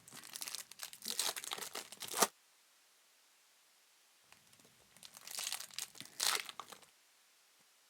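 Trading card pack wrappers being torn open and crinkled by hand, in two bursts of crackling, the first at the start and the second, after a quiet pause, in the second half.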